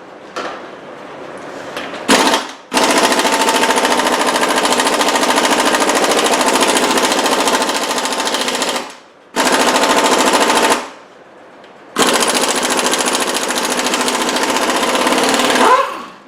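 Impact wrench hammering in four bursts, the longest about six seconds, zipping the lug nuts off the truck's wheel; the last burst winds down with a falling whine.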